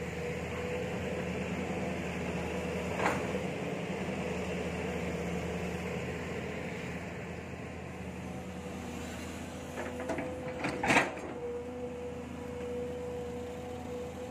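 Kobelco SK07 long-arm excavator running steadily, its engine and hydraulics giving an even hum. There is a sharp clank about three seconds in, and a few louder knocks around eleven seconds.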